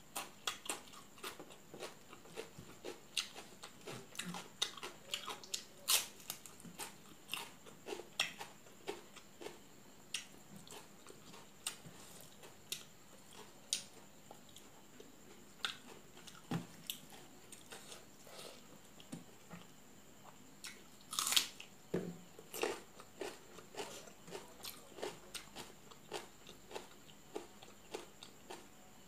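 Close-up eating sounds of rice and rohu fish curry eaten by hand: chewing and lip smacks in a stream of short, wet clicks, with a louder burst about 21 seconds in.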